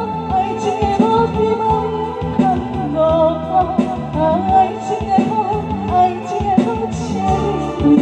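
A woman singing a melody into a microphone, amplified over instrumental accompaniment with bass and a drum beat.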